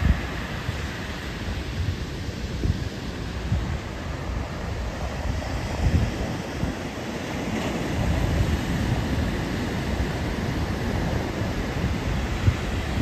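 Small ocean waves breaking and washing up a sandy beach, a steady rushing surf, with wind buffeting the microphone in irregular gusts.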